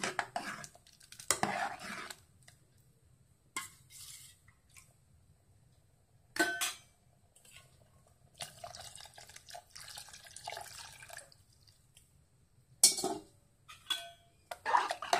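Metal ladle stirring stew and clinking against the sides of an aluminium pressure cooker, with a few sharp clanks of metal on metal. About halfway through, thick coconut milk is poured in from a bowl, with a splashing, liquid sound for a couple of seconds.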